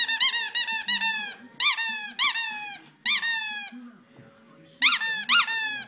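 Rubber squeaky toy ball squeaking as a Staffordshire Bull Terrier puppy chews it: a quick run of squeaks, then single squeaks with short pauses between them.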